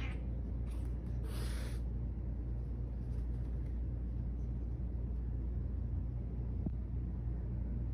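A steady low background hum. About a second and a half in comes a short hiss-like burst of noise, and near the end a faint tick.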